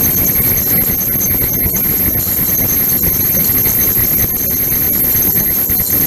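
Ultrasonic cleaning tank running with a stainless-steel bowl in the bath: a steady churning noise from the agitated water, with thin, steady high-pitched whines above it.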